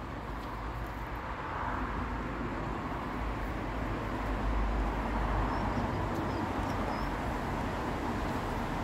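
Steady road-traffic rumble with a hiss of tyres, growing a little louder over the first few seconds and then holding.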